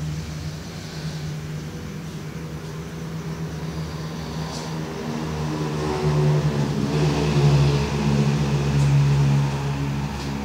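A person snoring: a low, continuous rumbling snore that grows louder about six seconds in and eases slightly near the end.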